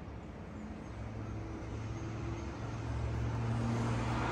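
An engine running with a steady low hum, getting louder near the end as it comes closer.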